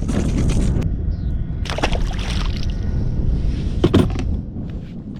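Wind buffeting the microphone on a fishing kayak, with water sloshing against the hull; a brief splash about two seconds in and a sharp knock about four seconds in.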